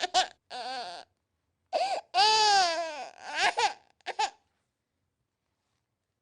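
Infant crying in short cries, then a longer falling wail about two seconds in and a few brief sobs, stopping suddenly after about four seconds.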